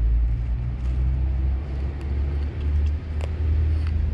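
Wind buffeting the action camera's microphone, a loud uneven low rumble that gusts and dips, with a sharp click about three seconds in.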